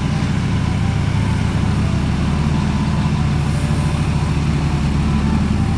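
Motor vehicle engine idling steadily, a low even rumble.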